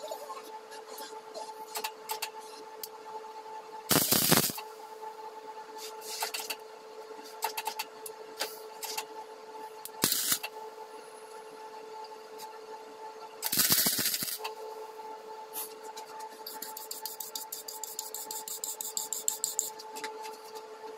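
Stick (arc) welding: short bursts of arc crackle as the electrode is struck against the steel, about four, ten and fourteen seconds in, over a steady hum. A fast run of light crackling ticks comes near the end.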